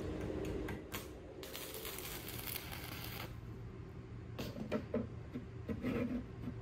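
Knife-making workshop sounds: tools and metal clicking and knocking, with a harsh hiss of about two seconds a second or so in, then more clicks and short clattering noises.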